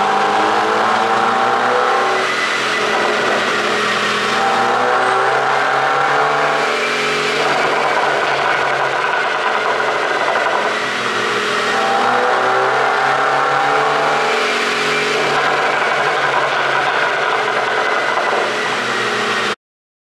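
Mercedes-Benz GLC with a pop-and-bang ECU tune, its engine revved repeatedly from the exhaust while stationary, rising and falling in pitch, with bursts of crackle between the revs. The sound cuts off suddenly near the end.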